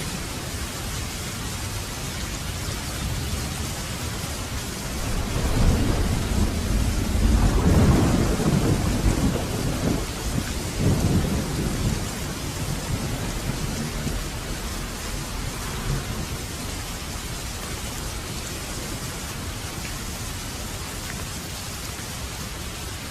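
Steady rain falling, with a low rumble of thunder that swells about a quarter of the way in, peaks around a third of the way through and dies away by about halfway, leaving the rain alone.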